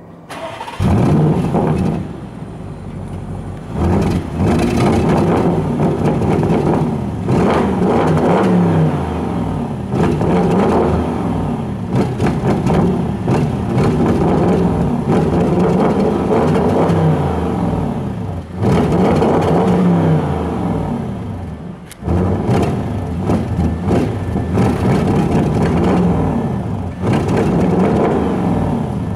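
Audi RS7's twin-turbo V8 firing up about a second in through a tuned exhaust, then revved repeatedly, each blip rising and falling back to idle.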